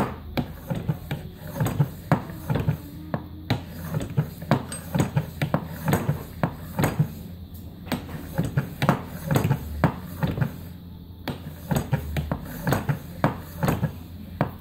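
Hand-cranked Loretto/Mason windway cutter being cranked as its cutter starts cutting the windway into a wooden recorder head: a fast, irregular run of clicks and knocks, several a second, pausing briefly a few times.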